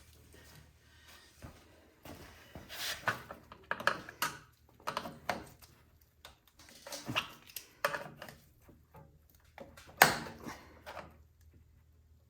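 Scattered knocks, clicks and scrapes of hand tools on the plastic and metal parts of a snowblower being taken apart, with a single sharp knock about ten seconds in.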